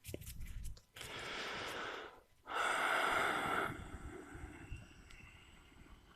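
A person breathing close to the microphone as a snoring imitation: a long breath in about a second in, then a louder breath out that fades away.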